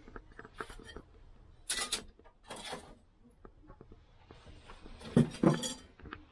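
Steel kitchen knife blade being given its final hand sharpening on a thin whetstone: two short scraping strokes of steel on stone among small taps and clicks, with a louder short noise near the end.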